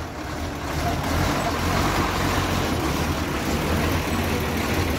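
Heavy lorry's diesel engine running steadily, a low even drone with no change in pace.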